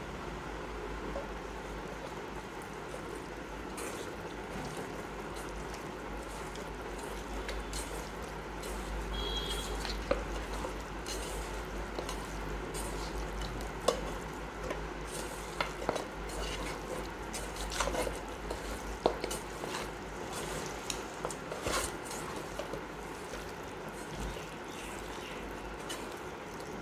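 Hands squishing and mixing raw mutton pieces with spice paste and oil in an aluminium bowl: wet squelching with many short sharp clicks, loudest in the middle stretch, over a steady low hum.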